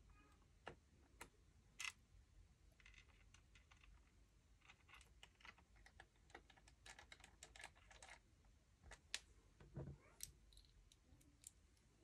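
Faint, irregular small clicks and ticks of a precision screwdriver turning tiny screws back into a Dell Latitude E7450 laptop's base cover, with one sharper click about nine seconds in.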